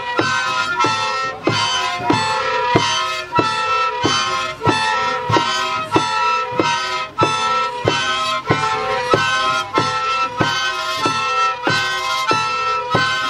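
A bailes chinos band playing: rows of chino flutes sound shrill, reedy chords that alternate back and forth between two pitches. A drum beats steadily underneath, about twice a second.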